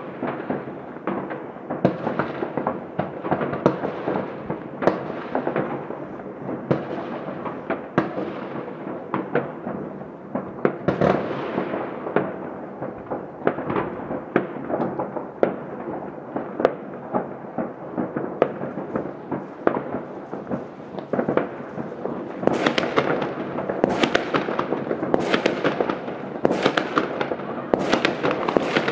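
Many fireworks going off across a city at once: an unbroken run of distant overlapping bangs and pops. In the last several seconds the bangs come closer together and sound louder and sharper.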